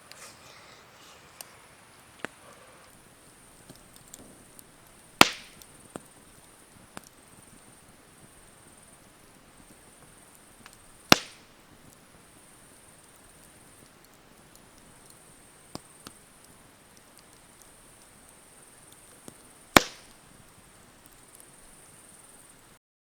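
Three sharp chopping strikes, several seconds apart, with a few lighter knocks and taps between them.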